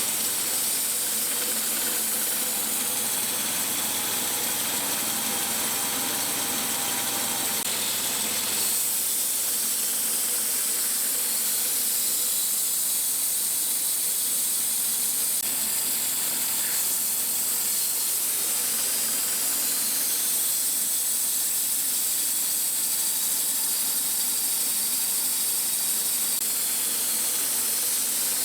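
Sawmill running steadily, its blade cutting slices off a red maple burl with a continuous high-pitched hiss.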